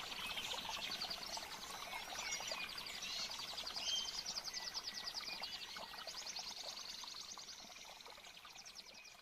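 Wildlife chorus of many fast, pulsed trills with scattered bird chirps over a faint background hiss, starting abruptly and fading toward the end.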